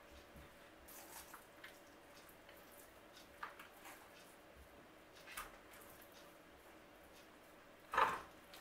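Dried herbs being shaken from a shaker jar over a raw fish: faint scattered taps and rustles, with one louder knock about eight seconds in.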